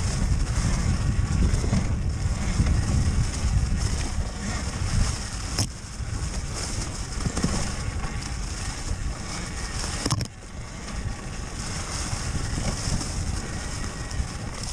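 Riding noise from a Talaria Sting MX4 electric dirt bike on a dirt trail: wind rumbling on the microphone over the bike's rattle, with no engine note. Two sharp knocks come about six and ten seconds in.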